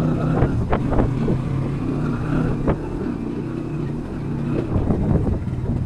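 A motor engine running steadily, with a few sharp knocks over it.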